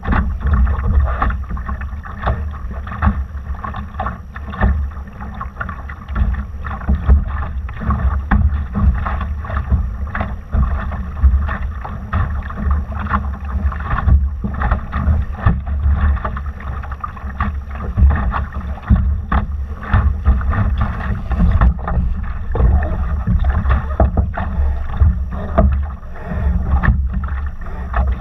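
Water rushing and splashing against the hull of a Laser sailing dinghy under way, with wind buffeting the microphone in irregular gusts.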